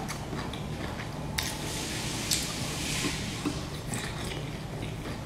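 Close-up eating sounds: soft, wet bites and chewing of a dumpling, with a breathy hiss starting about a second and a half in and lasting about two seconds.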